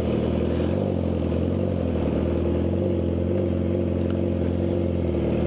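Yamaha YZF-R6 600 cc inline-four motorcycle engine running at a steady pitch while cruising.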